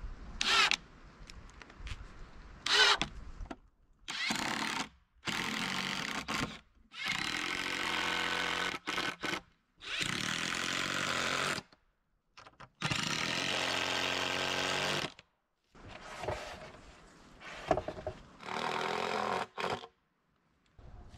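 Ryobi cordless impact driver driving wood screws into cedar boards, in about seven runs of one to two seconds each with short pauses between. A few sharp clicks come before it in the first few seconds.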